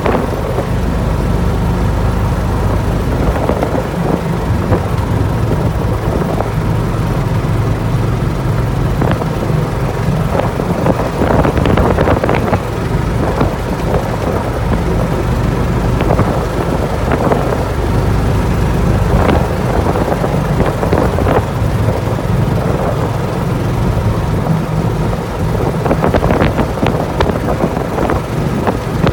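A vehicle running as it drives slowly along, heard from on board: a steady low rumble with scattered short knocks.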